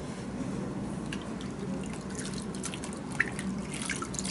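Water dripping and splashing into a plastic wash basin as a hand is rinsed, in scattered small drips. Near the end a wet washcloth is wrung out over the basin and the drips come thicker.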